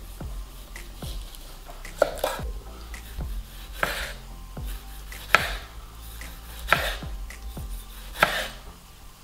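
Chef's knife slicing cherry tomatoes on a wooden cutting board, the blade knocking sharply on the board five times, about once every second and a half, after fainter cuts through ham in the first two seconds.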